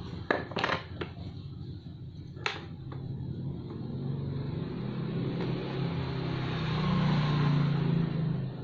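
A steady motor hum that grows louder toward the end and drops away at the close, with a few sharp clicks in the first three seconds.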